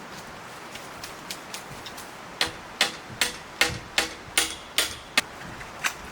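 A run of about nine sharp strikes, roughly two and a half a second, each with a short ringing note, then one lone strike near the end.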